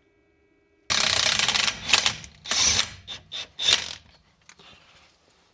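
Mechanical ratcheting rattle in bursts, a long one about a second in, then several shorter ones.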